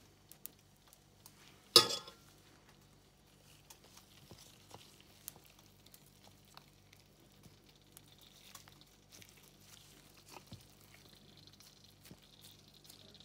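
A metal spoon clinks sharply once against a stainless steel tray about two seconds in, followed by soft squishing and light taps of gloved hands folding and pressing a mashed-potato shell closed around minced-meat filling, over a faint steady hum.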